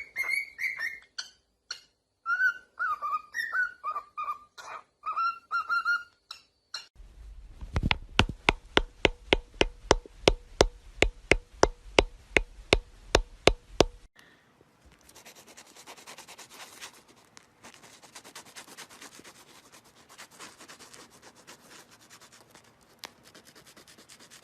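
A parrot's short whistled chirps, each a quick pitched note, for several seconds. Then comes a steady run of sharp taps, about three a second, for around seven seconds, and then faint scratching.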